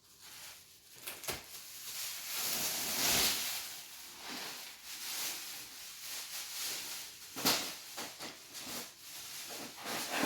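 Plastic garbage bags rustling and crinkling as they are pulled and torn open, with a sharper crackle about seven and a half seconds in.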